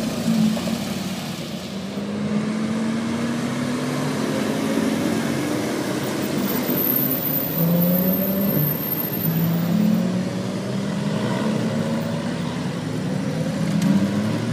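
Porsche sports cars' flat-six engines pulling away at low speed one after another, each engine's pitch rising as it accelerates. A motorcycle engine is heard near the end.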